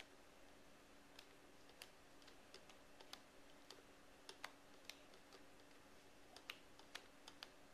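Near silence broken by faint, irregular small clicks, about one or two a second, over a faint steady hum.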